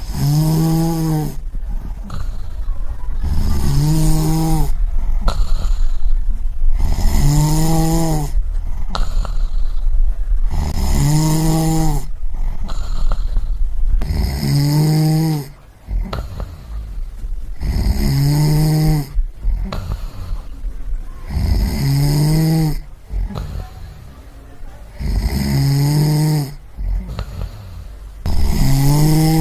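A person snoring in a regular rhythm, about eight snores, one every three and a half to four seconds. Each snore is a low tone that rises and falls in pitch, with a hiss over it.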